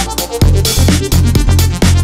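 Electronic dance music with a steady beat and strong bass.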